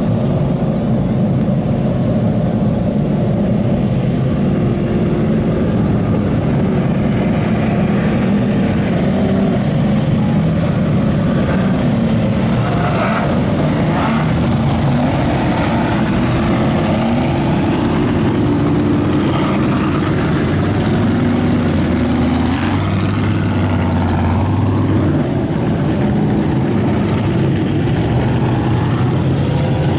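The engines of a pack of Ultra4 off-road race buggies running together at race pace, a loud overlapping drone whose pitches rise and fall as the cars accelerate and back off.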